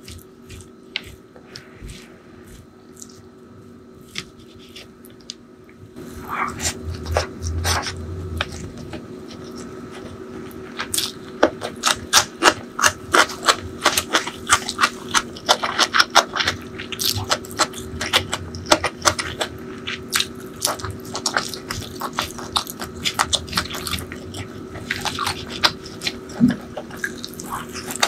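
Close-miked wet eating sounds: fingers squishing and mixing rice with chicken curry, then wet chewing and lip-smacking on handfuls of curried rice. It is soft for the first few seconds, then dense sharp wet clicks from about six seconds in, thickest from about eleven seconds.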